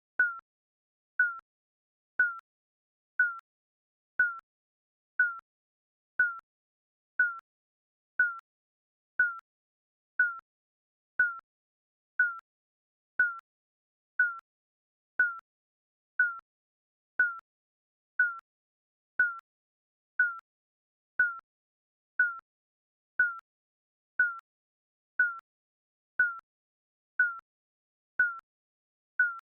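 Countdown timer's short, high electronic beep, repeating evenly once a second.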